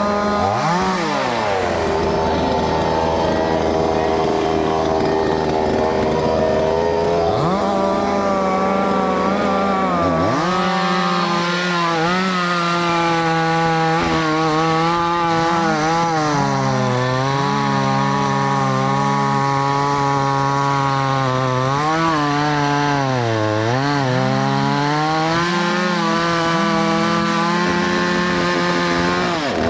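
Chainsaw running under load while cutting into a tree. Its engine pitch sags and climbs back several times as the chain bites into the wood.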